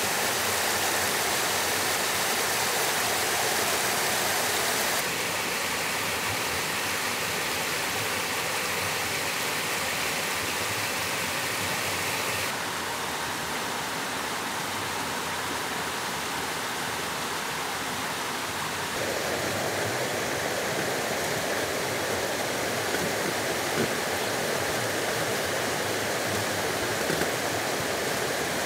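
Shallow rocky stream rushing over rocks in small cascades, a steady wash of water noise. Its tone changes abruptly three times as the recording cuts between spots.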